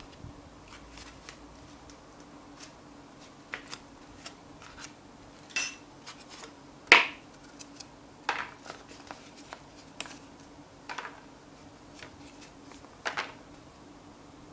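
Cardboard packaging being unfolded and handled: a string of short scrapes, slides and taps of card against card, the loudest about seven seconds in.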